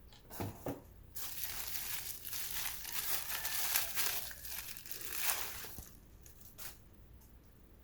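Packaging being crumpled and crinkled by hand: two short rustles, then about five seconds of continuous crinkling, and one last brief rustle.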